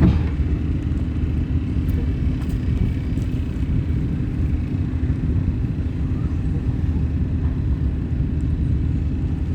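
Steady low mechanical rumble with a constant hum, unchanging throughout, and a single sharp click right at the start.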